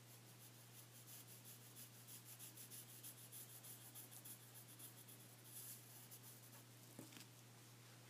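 Faint scratching of a graphite pencil on paper in quick short strokes, stopping shortly before the end.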